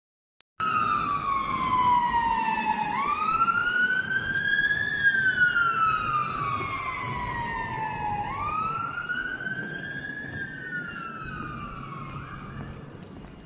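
Emergency vehicle siren sounding a slow wail. Its pitch rises quickly and falls slowly, about two and a half times, over a low rumble of street noise. It cuts in suddenly about half a second in and fades near the end.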